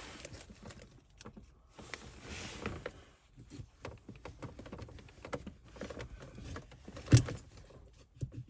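Hands working the plastic trim of a car's gear-knob gaiter: scattered small plastic clicks and rustling, with one sharper knock about seven seconds in, as the plastic is prised open to free a retaining clip.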